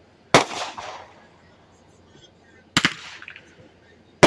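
Fireworks going off with sharp bangs: one shortly after the start, one a little under three seconds in, and two in quick succession at the end, each fading out briefly.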